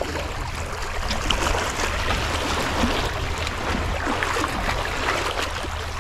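Sea water washing and fizzing over a rocky shore, a steady crackling hiss of small waves, with a low rumble underneath.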